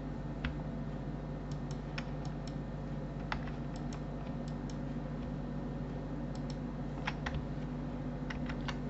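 Computer mouse buttons and keyboard keys clicking at irregular intervals, often in quick pairs, over a steady low electrical hum.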